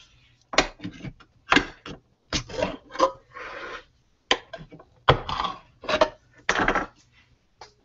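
A metal can of coconut milk handled on a countertop and its ring-pull lid worked with the fingers: a string of knocks, clicks and short scrapes, with a longer scrape about halfway through.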